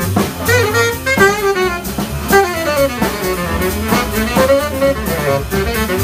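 Small jazz band playing live: a saxophone carries a moving melody over double bass and drums with cymbal strikes.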